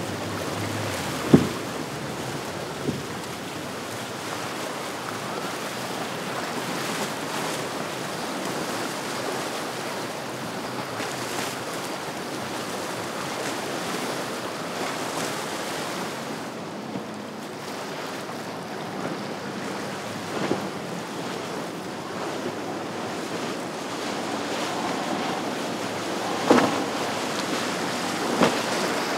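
Rough sea water rushing and washing as waves and boat wakes break, with wind buffeting the microphone. A few short, sharp knocks stand out: two near the start and a couple near the end.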